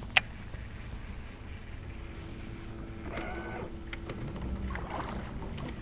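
Baitcasting reel cranking a lure back after a cast: a sharp click just after the start as the reel is engaged, then a steady mechanical whir of the retrieve.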